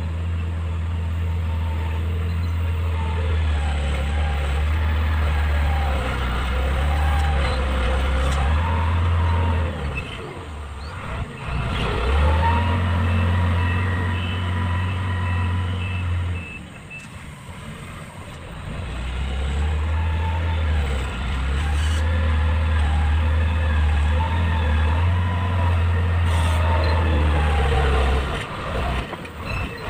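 Mitsubishi motor grader's diesel engine running hard as the machine works across loose fill, with the engine note dropping off twice and then pulling back up. A run of short, evenly spaced high beeps sounds about halfway through.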